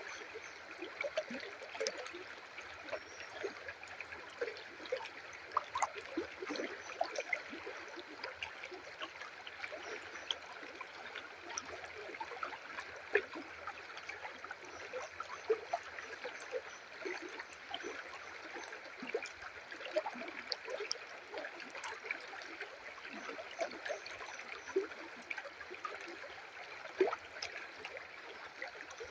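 Small river or stream flowing and trickling over rocks: a steady rush with many small, irregular splashes and gurgles.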